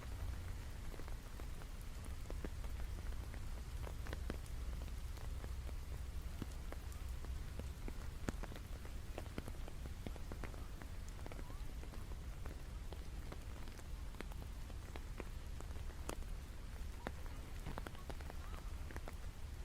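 Steady rain falling, with single drops striking close by as scattered sharp ticks over a constant low rumble.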